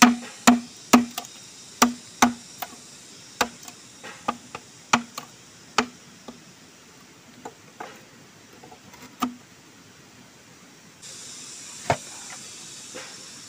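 Machete chopping into a green bamboo tube: a quick, uneven run of sharp chops, each with a short hollow ring, thinning out and stopping about nine seconds in. Near the end a steady hiss comes in, with a single knock.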